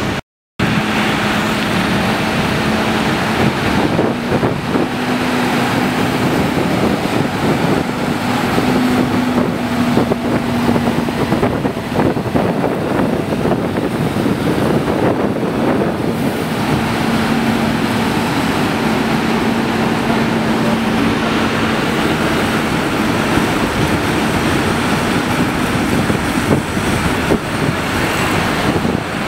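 Large farm tractors' diesel engines running as the tractors drive slowly past, with a low engine hum that rises and fades, under heavy wind noise on the microphone. The sound cuts out briefly about half a second in.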